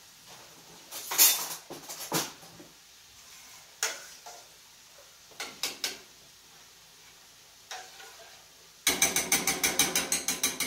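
Metal kitchenware clattering a few times, then a fast, even run of ringing clinks, about eight a second, from a utensil working in a stainless steel pot.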